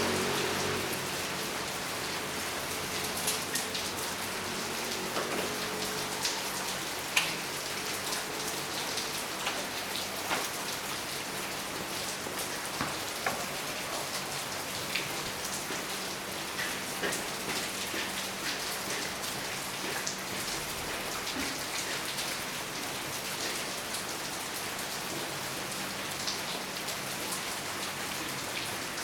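Steady rain falling, with many individual drops ticking irregularly on nearby surfaces.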